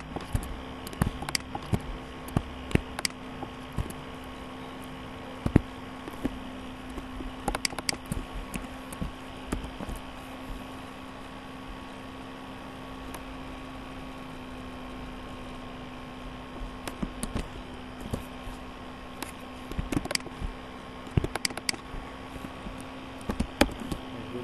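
Steady machine hum holding a fixed low tone, broken by scattered sharp clicks and taps that bunch together in the first few seconds and again over the last several seconds.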